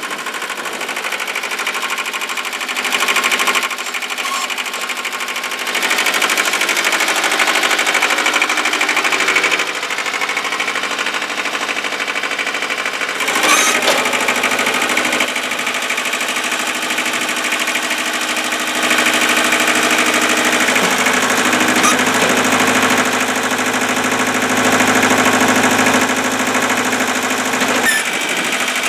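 Ford 1700 compact tractor's diesel engine running under load while the 770 front loader hydraulics raise and tilt the bucket. The engine note steps up and down a few times, with one clank about halfway through. The hydraulic filter screen has just been cleaned and the oil changed, the fix for the pump's sucking sound and the loader's shudder.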